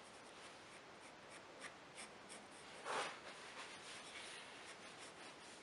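Faint scratching of a pencil point on drawing paper in short strokes as eyelid lines are drawn, with one louder brief rustle about three seconds in.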